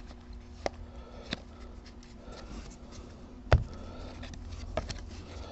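Baseball trading cards being flipped through by hand: scattered light clicks and rustles as each card slides off the stack, with one louder knock about three and a half seconds in.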